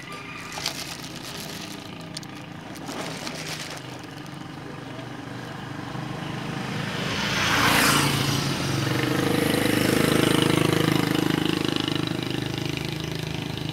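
A motor vehicle passing on the road, growing louder to a peak about eight seconds in, followed by a steady engine hum that fades toward the end. A few light knocks sound in the first few seconds.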